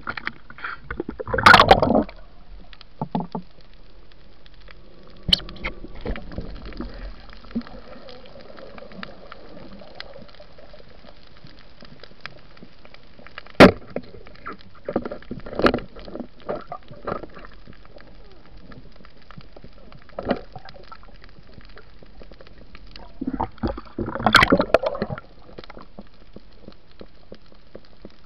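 Underwater sound picked up by a camera during a night spearfishing dive: a low steady water hiss with scattered sharp clicks and knocks, and louder splashy, gurgling bursts about one and a half seconds in and again near the end.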